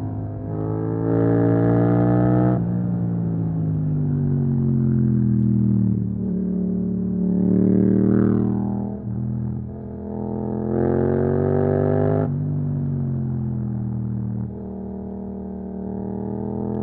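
Yamaha MT-07 parallel-twin engine through an Akrapovic exhaust, pulling hard with its pitch climbing, then dropping sharply as the throttle closes or it shifts, several times over.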